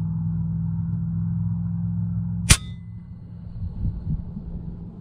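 A single shot from an FX Impact MK2 PCP air rifle fitted with a moderator: one sharp crack about halfway through, with a brief metallic ring after it. A steady low hum runs underneath.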